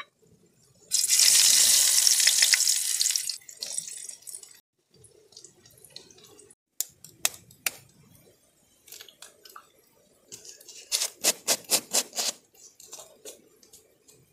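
Hot oil in a steel frying pan over a wood fire sizzling. It sets in with a loud hiss about a second in and fades over a couple of seconds. Later comes a quick run of about eight metallic clinks from the small steel cup holding a cracked egg.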